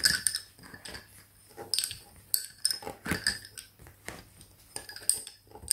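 Lace bobbins clicking and clacking against each other in quick, irregular taps as thread pairs are crossed and twisted while working bobbin lace.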